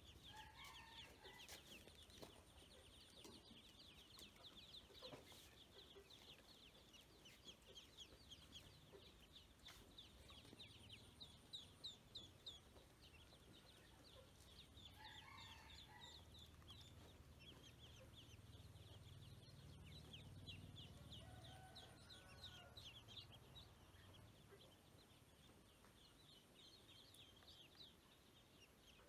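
A group of ducklings peeping, faint: a dense, continuous stream of short, high-pitched peeps, several a second. A few lower calls from another bird come in now and then.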